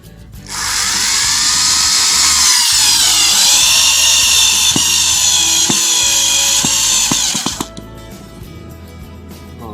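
Foster FSD-010 corded power screwdriver's motor whining as it drives a long screw, its pitch sagging about three seconds in as it comes under load. It runs for about seven seconds, then cuts off. Background music plays underneath.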